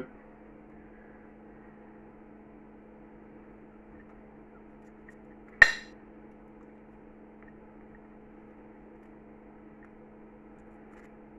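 Metal cutlery strikes a china plate once, a sharp clink with a short ring about halfway through, over a steady low hum.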